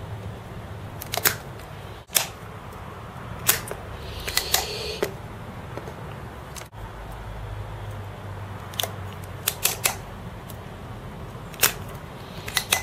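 Spring-loaded desoldering pump (solder sucker) being cocked and fired to suck molten solder from capacitor pads on a circuit board: sharp clicks at irregular intervals, a dozen or so, with a brief hiss of suction about four and a half seconds in, over a low steady hum.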